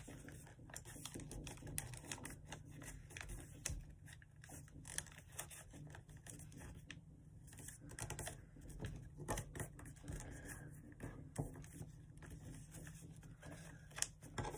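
A sheet of notebook paper being folded and creased by hand: irregular soft crinkles, rubs and small taps, the sharpest one near the end.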